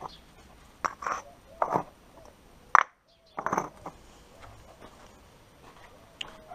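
Concrete paving blocks clacking against each other as they are stacked by hand, several sharp knocks with the loudest a little under three seconds in.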